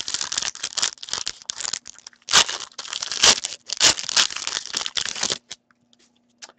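A foil hockey card pack wrapper torn open and crinkled by hand, a dense crackling that is loudest in the middle and stops about a second before the end.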